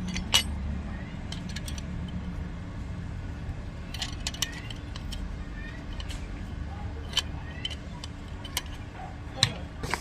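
Scattered light metallic clinks and clicks, with a cluster about four seconds in and more near the end, over a low steady hum.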